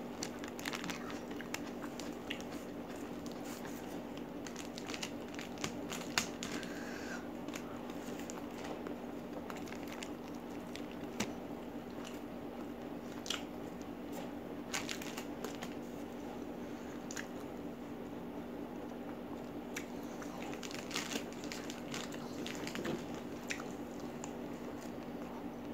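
Close-up eating sounds: chewing and biting of chicken in green chili sambal with rice and raw vegetables, eaten by hand, with scattered clicks and crinkles of a paper liner as food is picked up. A steady low hum runs underneath.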